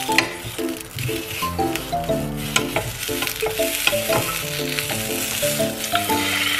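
Small sausages sizzling in a frying pan, with a wooden spatula clicking and scraping against the pan as they are turned. A light melody of background music plays over it.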